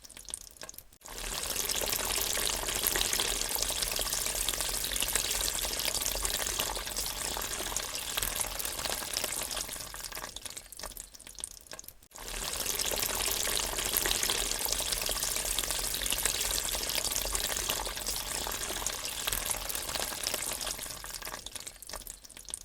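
Water draining away, twice: each time it starts suddenly and slowly fades over about ten seconds.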